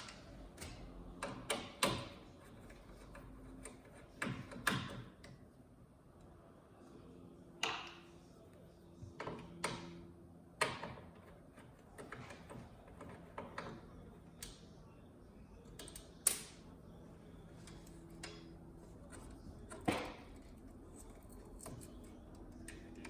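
Irregular sharp clicks and light knocks of hands and tools working on a flat-screen TV's insides, the loudest knocks about 16 and 20 seconds in.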